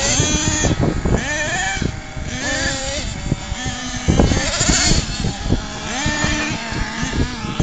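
Small engine of a radio-controlled monster truck revving up and down again and again, with short rising and falling whines as it drives over a dirt track.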